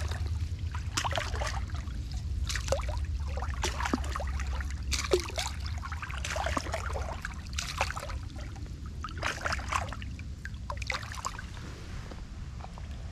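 A bass thrashing in shallow water at a muddy bank, making a string of short, irregular splashes over a steady low rumble.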